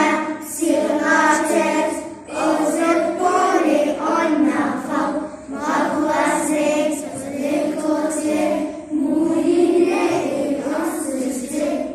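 Children's voices singing together in chorus, in phrases of about a second or two with brief breaks.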